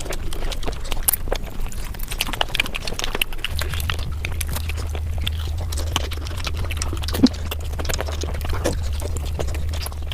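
Mukbang eating sounds sped up five times: a dense run of rapid chewing, crunching and mouth clicks. A steady low hum comes in about three and a half seconds in.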